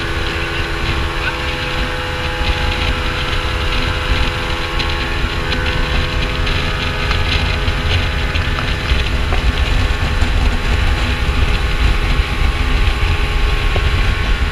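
Twin Yamaha 200 outboard motors running steadily with the boat under way at speed: a constant engine drone with a low rumble, over a rush of wind and water.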